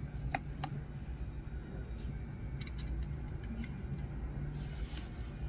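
A few light clicks and taps of a small diecast toy car being handled, over a steady low hum, with a short rustle near the end.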